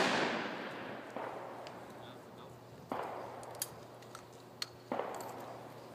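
The echoing tail of a shotgun shot fired at a skeet target dies away over the first second. Three fainter, more distant shotgun reports follow, about a second, three and five seconds in, each trailing off, with two short sharp clicks between them.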